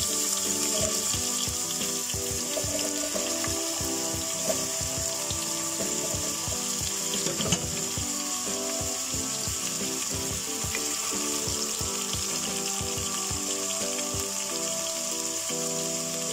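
Cubed potatoes sizzling steadily as they fry in hot mustard oil, a constant high hiss, with a couple of short knocks. Background music with a steady beat plays throughout.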